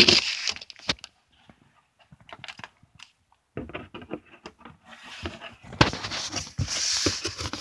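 Packaging being handled during an unboxing: crinkling and rustling in uneven bursts with small clicks and knocks, dropping out briefly after the first second and building up again in the second half.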